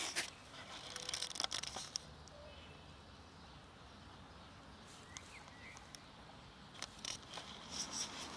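Bursts of light rustling and crackling, one cluster in the first two seconds and another near the end, with a quiet outdoor background between.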